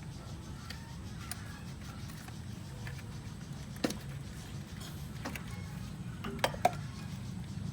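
A few sharp metallic clicks and clinks over a low steady hum; the loudest two come close together near the end.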